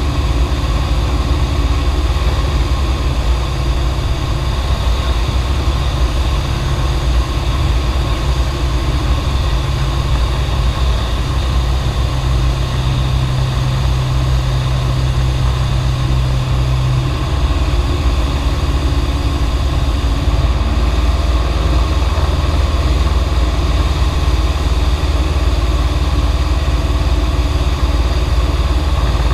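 Cessna 172's piston engine and propeller droning steadily in cruise flight, heard inside the cockpit. One low tone in the drone drops out about seventeen seconds in.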